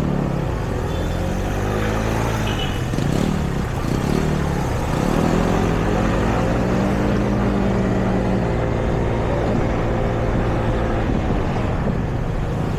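City street traffic: a steady rumble with several vehicle engines passing one after another, their pitch rising and falling as they go by.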